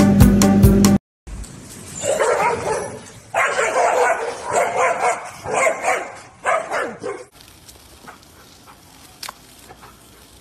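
About a second of loud music, then a golden retriever and a corgi barking hard at each other across a glass door: a rapid run of barks lasting about five seconds, which stops abruptly. A few faint clicks follow.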